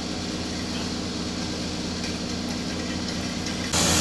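Engine idling with a steady, even hum. Near the end it gives way abruptly to a louder, hissier sound.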